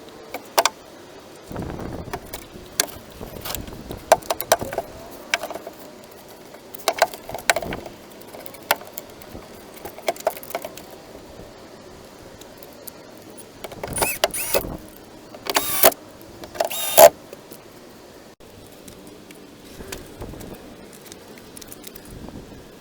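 Irregular metallic clinks, clicks and knocks of hand tools and parts being handled during work on a car door, with a few longer, louder scraping noises past the middle.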